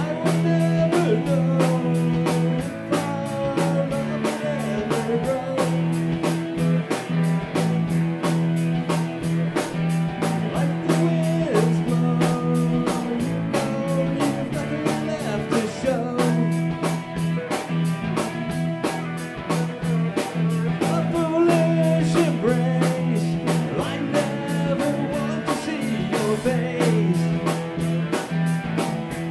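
Live rock band playing: two electric guitars, an electric bass and a drum kit, with a steady beat.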